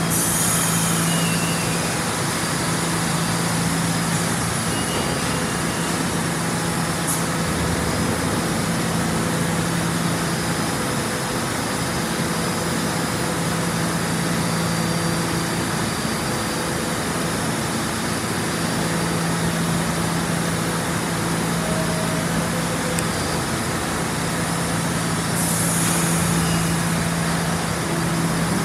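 Steady hum and rumble of New York City subway trains: the stopped R160A car's equipment hums while an R68 train rolls slowly along the next track. A short hiss of air comes near the end.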